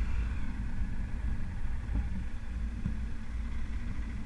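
Motorcycle engine running steadily as the bike rides uphill, with a heavy low rumble of wind on the microphone underneath.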